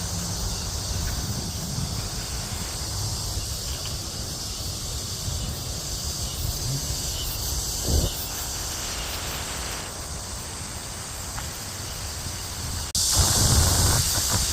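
Cicadas buzzing in a steady high-pitched chorus, over a low rumble of wind on the microphone; the chorus turns suddenly louder near the end.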